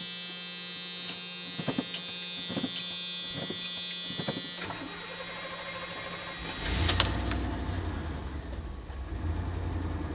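1988 Chevrolet K2500 pickup's key-on warning buzzer sounds steadily. About four and a half seconds in the starter cranks for a couple of seconds, then the gasoline engine catches about seven seconds in and settles into a steady idle. This is a start after four months sitting, on a new battery.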